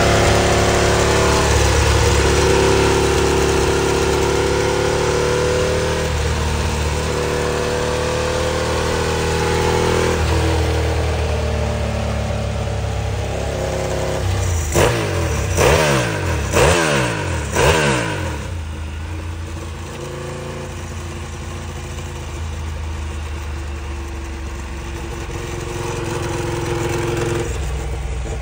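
Ducati 749R's V-twin through a Termignoni full exhaust, running steadily. About halfway through, the throttle is blipped four times in quick succession, each rev rising sharply and falling back. It then settles to a lower, quieter running note.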